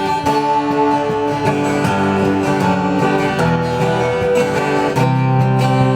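Guild F-512E maple 12-string jumbo acoustic guitar being played, chords ringing and changing in the key of G.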